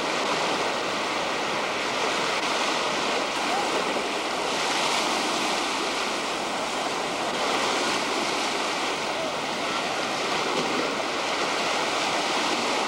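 Waves breaking and washing around people standing in the water: a steady rushing of surf.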